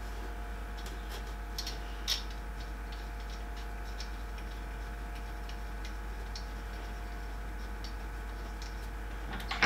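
Sparse light clicks and ticks of small 3D printer parts being handled and fitted by hand, the clearest two about a second and a half and two seconds in, over a steady low hum.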